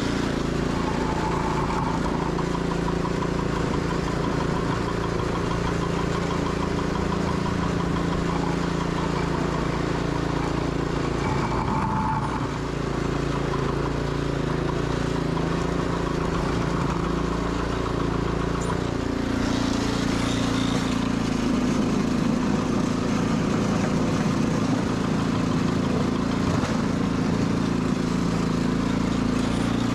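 Sears Suburban 12 garden tractor engine running steadily, its note shifting twice, about twelve and nineteen seconds in.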